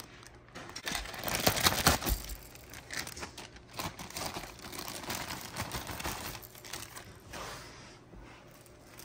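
Clear plastic zip-top bags crinkling and rustling as soft fabric toy pieces are pulled out of them, loudest about two seconds in.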